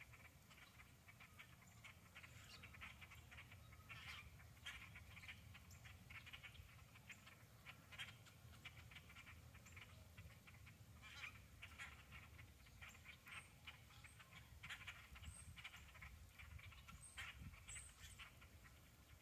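A large flock of small dark birds perched in bare trees calling all at once, many short calls overlapping into a faint, continuous chatter, with a few higher chirps now and then. A low steady rumble runs underneath.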